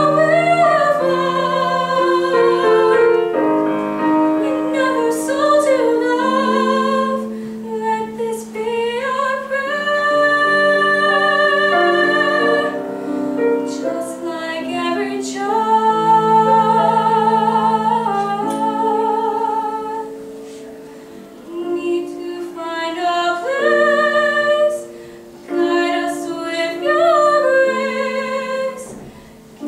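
A young girl singing a classical-style solo with vibrato on long held notes, accompanied by piano chords played on a digital keyboard. The singing pauses briefly twice a little past the middle while the piano carries on.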